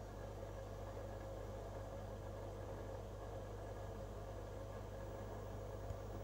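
Steady low electrical hum with a constant hiss from a running aquarium pump, unchanging throughout, with one faint tick near the end.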